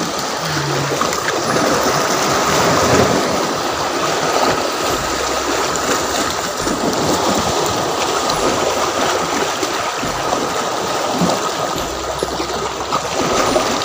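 Small waves breaking and washing against shoreline rocks and a concrete pillar, a steady rush of surf.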